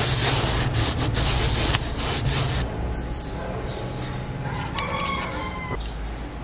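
A cloth rubbing back and forth across the dashboard's plastic top, a loud hiss for the first two and a half seconds. About five seconds in, a rooster crows once in the background, for about a second.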